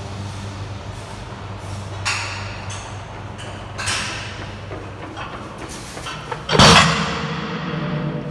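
Loaded 325 lb strongman farmer's-walk handles being carried, with a couple of light knocks, then set down onto the gym floor late on with a loud heavy thud and a metallic ring after it.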